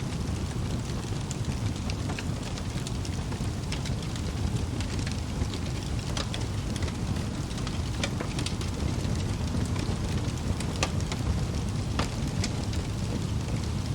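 Wood fire in a fireplace burning steadily with a low roar of flames and frequent sharp crackles and pops from the logs.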